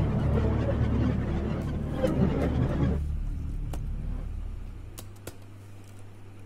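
A loud low rumble that drops away about three seconds in, followed by a few sparse laptop keyboard key clicks over a faint steady hum.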